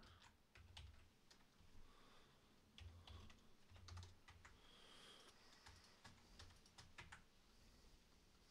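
Faint, irregular computer keyboard keystrokes, single clicks spaced unevenly.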